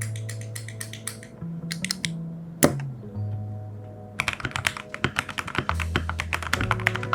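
Typing on a Tofu65 wooden-case custom mechanical keyboard with a brass plate, lubed Akko Jelly Black linear switches and ASA keycaps: scattered keystrokes at first, one loud single keystroke near the middle, then fast continuous typing from about four seconds in. Background music with held bass notes plays under it.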